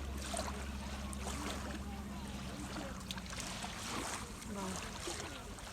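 Beach ambience: steady surf and wind noise with faint chatter of people, under a low steady hum that fades out about four seconds in.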